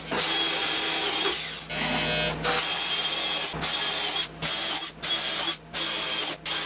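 Hand-held power drill boring small holes into a wooden fibreboard panel, run in about eight short bursts with brief stops between them.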